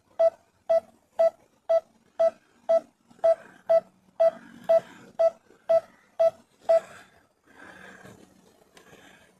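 Drone controller warning beeps: a short mid-pitched beep repeating evenly about twice a second, stopping about seven seconds in. A faint rustling noise follows.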